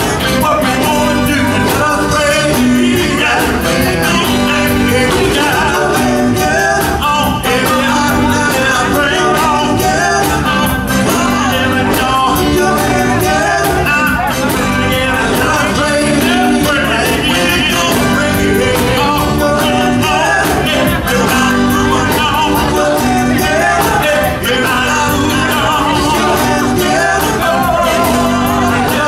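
Live R&B/soul band playing loudly while a male vocal group sings lead and harmony into microphones, over drums and keyboards.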